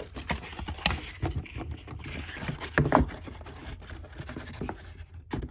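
Cardboard egg flats rustling and scraping against each other and the sides of a plastic storage tub as they are pushed into place, with a few sharper knocks, the loudest about one and three seconds in.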